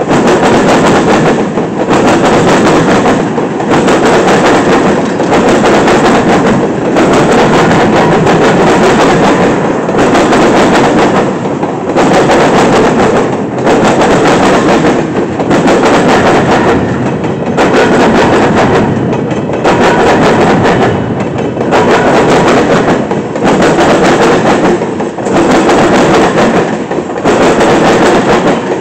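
Freight cars of a long train rolling past close by: a loud, steady rumble of steel wheels on rail with clacking. The noise swells and dips in an even rhythm about every one and three-quarter seconds as each car goes by.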